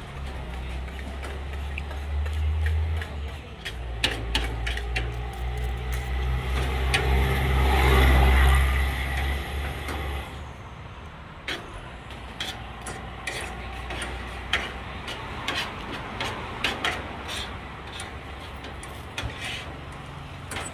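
A motor vehicle passing close by on the road, its engine rumble swelling to its loudest about eight seconds in and dropping away soon after. Spoon and fork click and scrape on a plate throughout.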